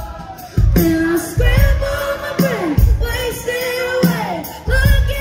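Live band playing loud pop-rock: a heavy kick drum beats under a singer's held, sliding melody, heard from within the crowd.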